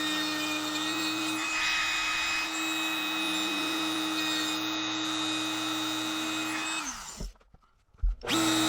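Electric power tool motor running with a steady whine. About seven seconds in it stops, winding down briefly, and after about a second of near silence it starts up again.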